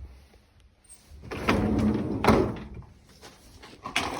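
Dishwasher door being pulled open with sliding and knocking, two sharp knocks about halfway through.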